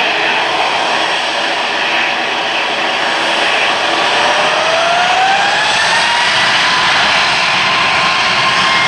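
Boeing 737 MAX 8-200's CFM LEAP-1B turbofan engines running loud on the runway. About four seconds in, their whine rises in pitch over a couple of seconds, then holds: the engines spooling up to thrust.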